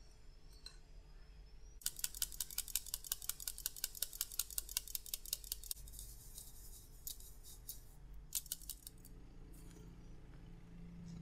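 Rapid, light, even clicking, about eight strokes a second for about four seconds, then a soft scraping hiss and a brief second run of clicks: a kitchen utensil beating against a mixing bowl.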